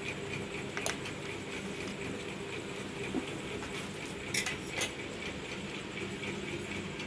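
A few light clinks of a steel knife against a ceramic plate: one about a second in and two close together a little past the middle, over a steady background hum.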